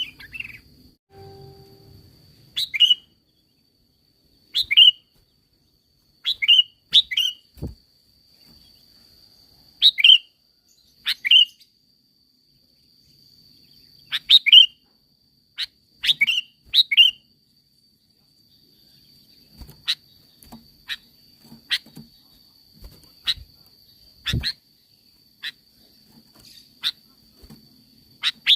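Sooty-headed bulbul calling: short, sharp chirped notes, singly or in quick pairs, every second or two. After about two-thirds of the way in they give way to fainter, clicking notes. A faint, steady high-pitched tone runs underneath.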